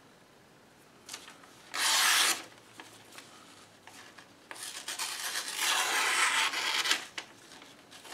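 A knife blade drawn through paper in slicing cuts: one short cut about two seconds in, and a longer drawn cut from about four and a half to seven seconds.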